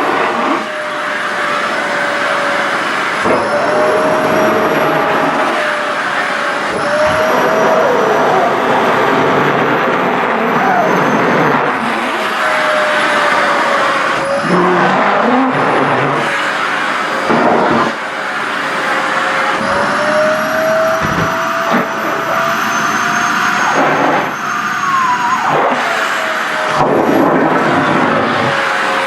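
Sharp EC-KP7F-A vacuum cleaner running steadily, its motor whine drifting up and down in pitch as the nozzle sucks at skirt fabric, with a few brief dips and knocks as the cloth is pulled in.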